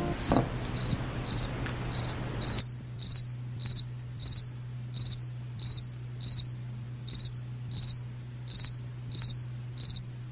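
A cricket chirping steadily, about two chirps a second, each chirp a quick trill of a few pulses.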